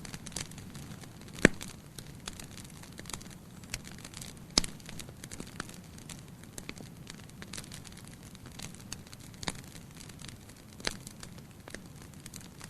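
Bonfire crackling: irregular sharp pops and snaps over a low steady rush. Two pops stand out as louder, about a second and a half in and again some three seconds later.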